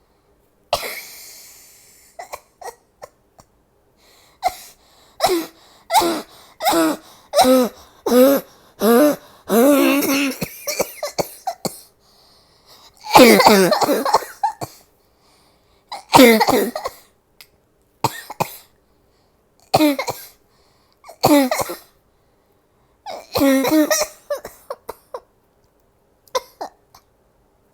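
A woman coughing hard, open-mouthed and voiced: a rapid run of about eight coughs, then one long loud coughing fit about halfway through, followed by single coughs every couple of seconds and a short cluster near the end. This is her deliberately let-out 'specialty cough', done while fighting off a cold.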